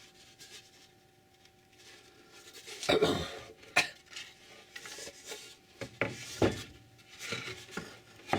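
Hand tools and wooden pieces handled on a workbench: a quiet start, then a run of irregular knocks and clinks with short scrapes between them.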